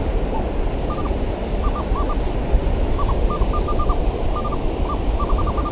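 Minelab Manticore metal detector giving short, clipped high beeps in small groups as it passes over a buried metal target, over a steady rush of surf and wind.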